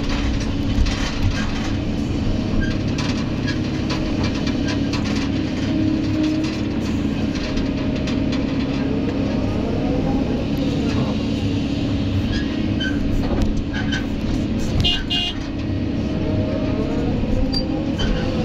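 Kobelco excavator's diesel engine and hydraulics running steadily under working load, heard from inside the operator's cab. About halfway through and again near the end, a whine rises and falls in pitch as the arm and bucket move.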